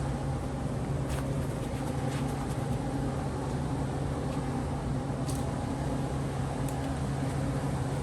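Steady mechanical hum, with a few faint light clicks over it.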